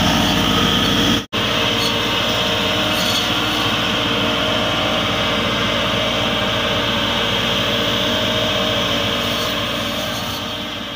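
Massey Ferguson 385 tractor's four-cylinder diesel engine running steadily. The sound breaks off for an instant a little over a second in, then carries on and fades away near the end.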